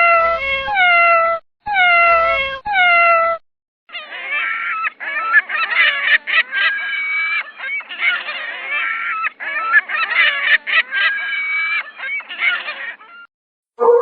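A cat meowing about five times in quick succession, each meow falling in pitch. After a short pause, a flock of birds calls over one another with a dense, honking clamour for several seconds.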